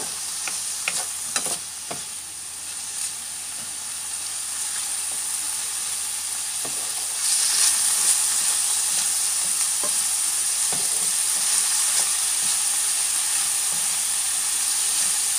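Ground beef sizzling in a frying pan with no oil added, cooking in its own rendering fat. A spatula stirs it with scrapes and taps against the pan, most of them in the first couple of seconds. The sizzle grows louder about seven seconds in.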